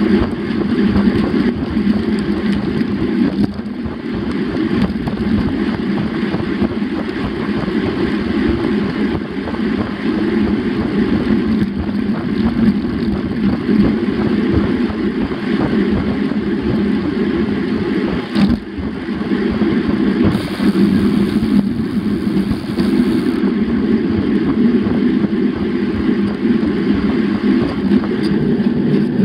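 Steady wind rush and tyre-on-pavement rumble picked up by a bicycle-mounted action camera as the bike rolls along, with one brief knock about eighteen seconds in.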